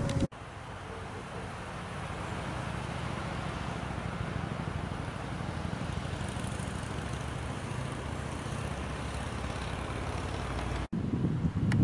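Distant diesel train engine running steadily: a low, even hum under outdoor background noise.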